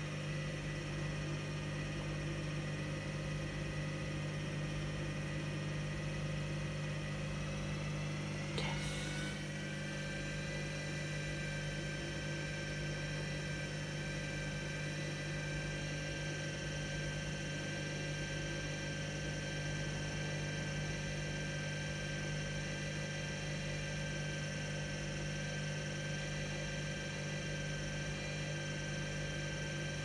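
Hoover front-loading washing machine in a suds lock, excess foam holding it back from spinning: a steady hum with a thin motor whine. A click comes about nine seconds in, where the whine steps up slightly, and the whine begins to rise near the end.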